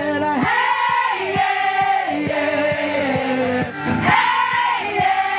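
A song: a voice singing long held notes over a steady rhythmic accompaniment of about four beats a second.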